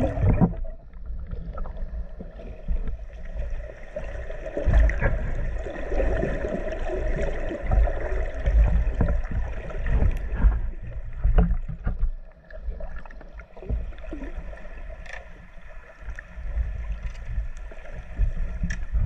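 Muffled underwater sound picked up by a camera in a waterproof housing: a low churning rumble with irregular knocks, and a faint steady hum beneath.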